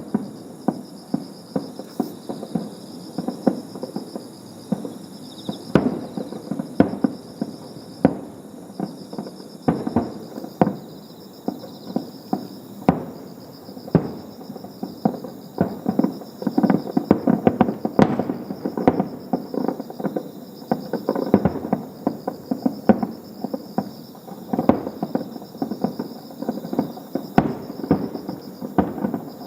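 Fireworks display: aerial shells bursting one after another, sharp bangs mixed with crackling, with thicker volleys around the middle and again near the end.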